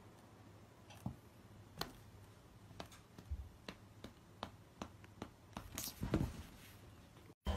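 Faint, scattered light taps and clicks from two cats sparring on an upholstered seat, with a short scuffle of sharper sounds about six seconds in as one cat leaps at the other.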